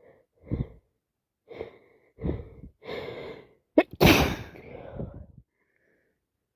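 A person with a heavy cold building up to a sneeze: a few gasping intakes of breath over about three seconds, then one loud sneeze about four seconds in that trails off over a second.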